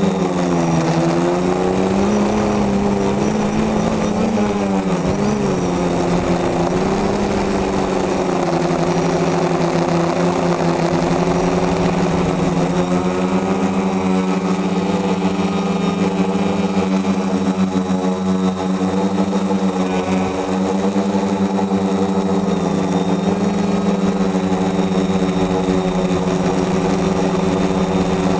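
DJI F450 quadcopter's four electric motors and 10x5 propellers buzzing, heard from the camera mounted on the frame. The pitch wavers up and down for the first six seconds or so, then settles into a steady hum, with a thin high whine underneath.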